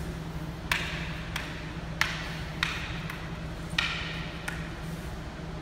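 Kali training sticks clacking together as two partners run a Filipino martial arts stick drill, one feeding strikes and the other blocking and catching them. About six sharp clacks come at an uneven pace, roughly one every two-thirds of a second.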